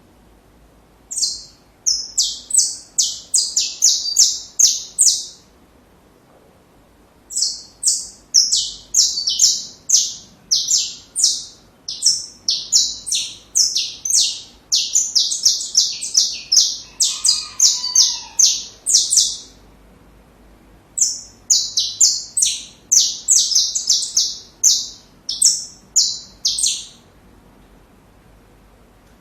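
Saffron finch singing: three bouts of rapid, high chirping notes, the middle bout the longest, with pauses of a second or two between them.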